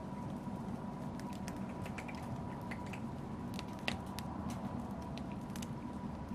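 Wood fire crackling in a fireplace: a steady low rumble of flames with many small, irregular pops and snaps, the sharpest snap about four seconds in.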